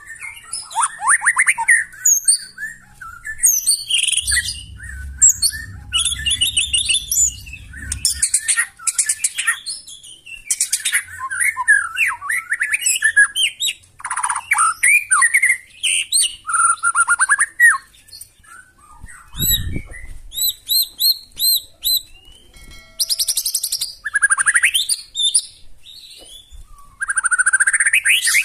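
White-rumped shama singing a loud, varied song of fast trills, sweeping whistles and harsh notes, with a run of quick repeated chirps about twenty seconds in. A low rumble sits under the song for a few seconds early on, and a dull thump comes just before the chirps.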